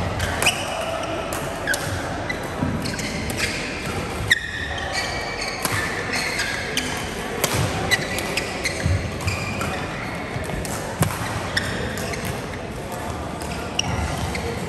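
Badminton play: irregular sharp racket strikes on the shuttlecock and thuds of feet on the court, with voices around.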